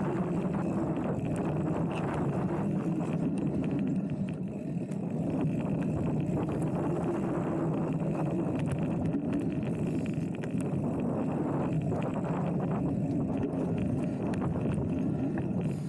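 Mountain bike rolling along a dirt trail: a steady rumble of tyres and bike noise, with small clicks scattered through it.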